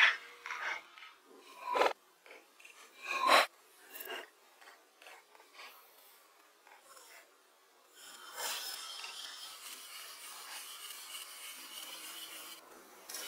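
Wooden logs being handled: a few sharp wooden knocks and scrapes in the first four seconds, then from about eight seconds a steady rough rubbing noise that stops shortly before the end.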